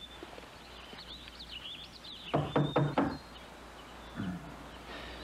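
A quick series of knocks on a panelled wooden door, with birds chirping in the background.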